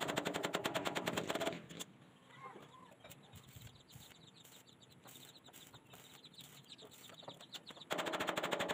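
A fast, loud rattle of sharp clicks for the first second and a half. It then gives way to the quieter crackle of an arc-welding bead on the steel tube frame, and the rattle starts again near the end.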